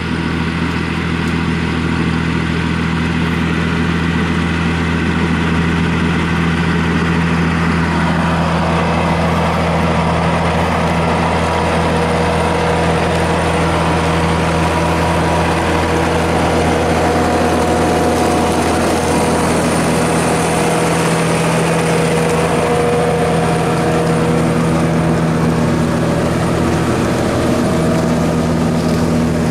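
Fendt Favorit 612 LSA tractor's diesel engine running steadily under load as it pulls a plough through stubble. About eight seconds in, a rougher rushing noise joins the engine's even drone.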